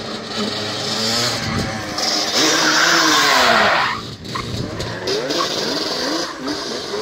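Yamaha Banshee 350's twin-cylinder two-stroke engine, on aftermarket pipes, revving up and down over and over while drifting. From about two seconds in a loud rushing noise of the tyres sliding on the dusty concrete rises over the engine as the quad slides past close by, and cuts off suddenly near the four-second mark, followed by a run of quick revs.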